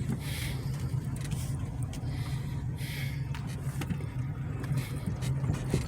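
A car driving, with a steady low rumble of engine and tyres heard from inside the cabin and a few brief swells of road hiss.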